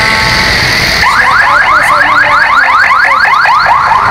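Electronic siren yelping: fast rising whoops, about six a second, starting about a second in.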